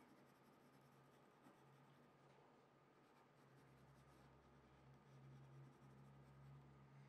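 Faint scratching of a pencil shading on paper, in short repeated strokes, over a low steady hum.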